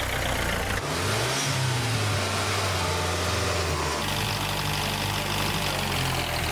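Dubbed vehicle engine sound effect for toy vehicles: an engine running, revving up about a second in, with the engine sound changing at about four seconds.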